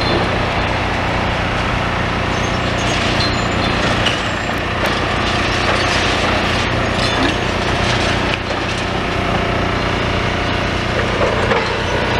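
Demolition excavator's diesel engine running steadily, with continual crunching and crackling of building material breaking.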